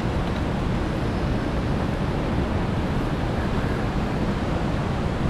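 Wind buffeting the microphone: a steady low rumbling rush with no distinct events.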